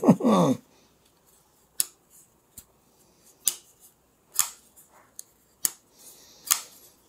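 Real Steel H6 Blue Sheep folding knife on a washer pivot, its blade being flicked open and snapped shut again and again: a string of sharp metallic clicks, about one a second.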